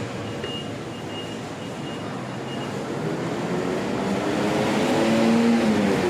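A motor vehicle passes close by in street traffic, its engine noise swelling and the pitch falling as it goes past. Short high electronic beeps repeat about twice a second in the first few seconds.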